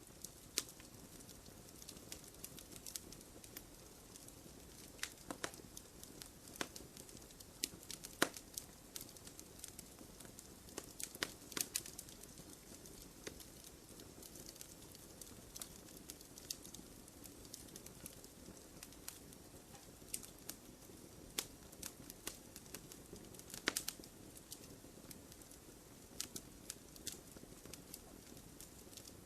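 Campfire crackling: irregular sharp pops and snaps of burning wood over a soft steady hiss, with a few louder pops scattered throughout.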